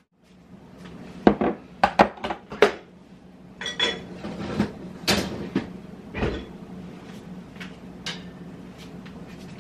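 Kitchen clatter of dishes, utensils and cans being handled on a counter: a quick run of knocks and clinks, a louder knock about five seconds in, then a few lighter taps.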